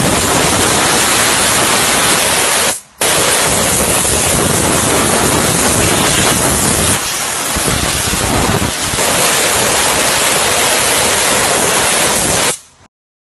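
Steam pressure washer jet hissing steadily as it sprays into a car engine bay. It drops out briefly about three seconds in, then cuts off suddenly near the end.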